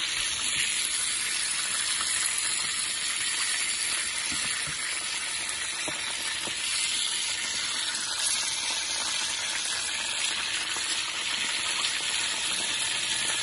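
Hot oil sizzling steadily in a frying pan as minced-meat seekh kebabs shallow-fry, a dense even hiss with a few faint pops.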